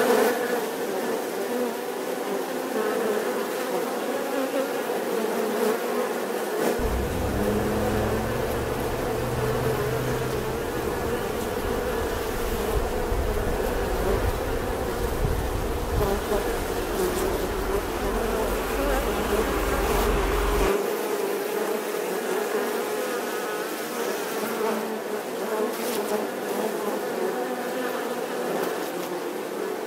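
Many honeybees buzzing in a steady, continuous hum. A low rumble runs underneath through the middle stretch, starting about a quarter of the way in and stopping about two-thirds through.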